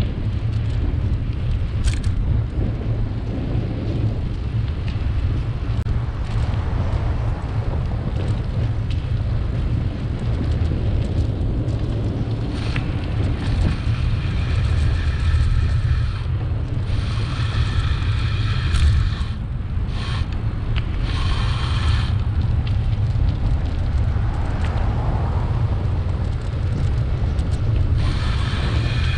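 Wind buffeting the microphone of a bike-mounted camera while riding, a steady low rumble. In the second half, a high whine made of several pitches comes and goes a few times.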